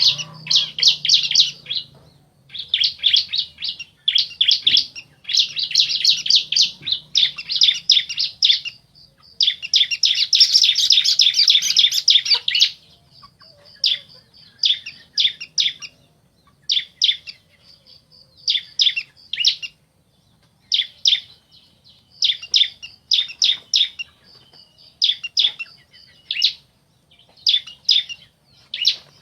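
Bar-winged prinias (ciblek), male and female, calling back and forth in fast, high chirping trills. About ten seconds in comes a long unbroken run of trills, after which the calls come as shorter phrases with pauses between them.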